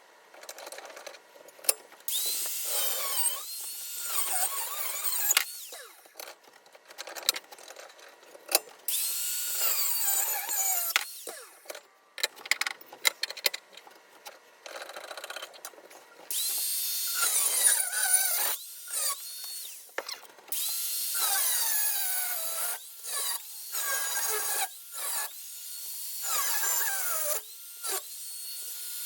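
Power tool cutting steel knife blanks clamped in a vise, in start-stop runs of a few seconds, its whine dipping and rising under load.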